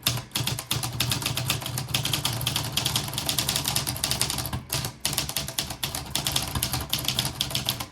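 Olivetti Lettera 32 manual portable typewriter being typed on in a quick, continuous run of key strikes as the type bars hit the platen, with a brief pause about halfway through.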